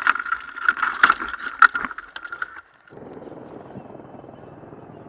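Martin Jetpack hitting the ground under its ballistic parachute, heard through its onboard camera: a burst of knocks and crashes over a steady high whine, which cuts off about two and a half seconds in. After that, a steady rushing hum from the chase helicopter.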